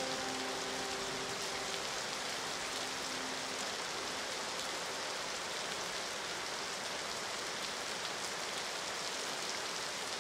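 Steady rain falling, an even hiss. The last held notes of the music die away in the first two seconds.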